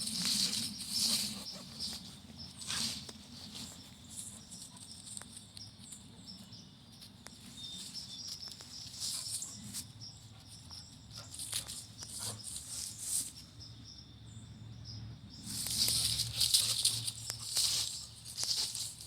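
A dog scuffling and rustling about, with short crisp rustles and clicks of its movement; the rustling is loudest in the first moment and again in a busier flurry about sixteen seconds in, with quieter scuffs between.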